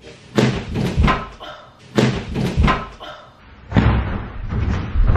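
Large cardboard mattress box being wrenched and torn open by hand: a handful of loud thumps and rips as the flaps and packaging give.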